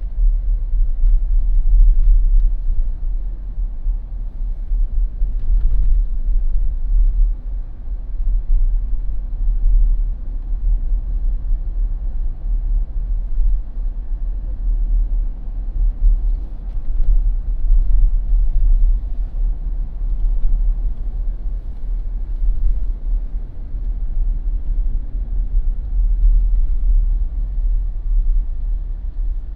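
A Jeep driving on an asphalt street: a steady low rumble of engine and tyres that swells and eases every few seconds.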